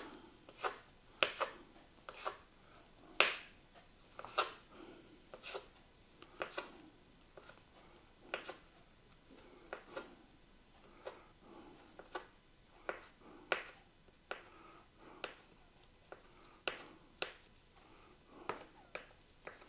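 Knife cutting boiled eggs on a cutting board: a string of sharp, irregular taps about once a second, some in quick pairs.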